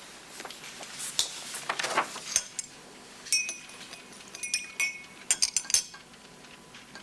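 Paper rustling as a folder is handed over, then a quick run of small, sharp clinks that ring briefly, in the second half.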